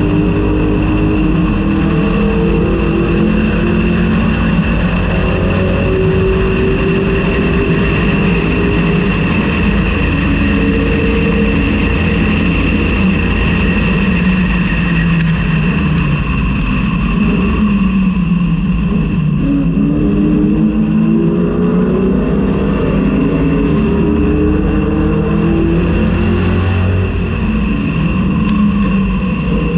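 1999–2004 Ford Mustang race car's engine under hard acceleration, heard from inside the car. Its pitch climbs in steps through the gear changes, eases off about two-thirds of the way in, then climbs again.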